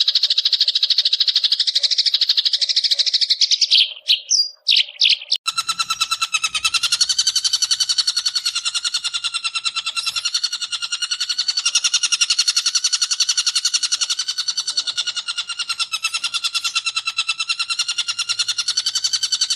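Long-tailed shrike chattering in its rapid 'ngekek' runs: a fast, high rattle of repeated notes for about four seconds, a few separate calls, then from about five and a half seconds a lower, buzzier pulsing chatter that keeps going.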